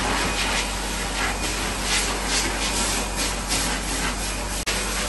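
Pet grooming dryer blowing a steady, loud hiss over a wet dog's coat, swelling in short pulses as the air works across the fur.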